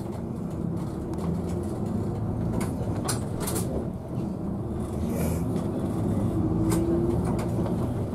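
City bus's diesel engine heard from inside the cabin as the bus turns and picks up speed, its engine note growing louder. A few sharp clicks and rattles come near the middle.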